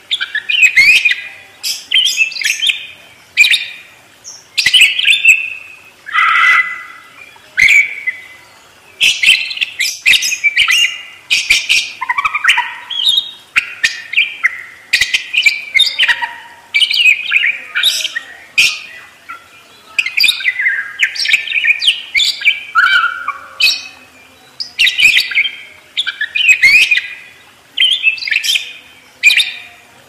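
Budgerigars chirping and warbling in short, repeated bursts of high chirps, about one burst every second or so.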